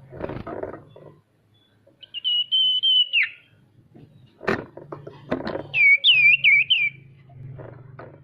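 A sirtu songbird whistling: one long, high, level whistle that drops sharply at its end, then a few seconds later a quick run of looping whistled notes. Short knocks and rustles come in between.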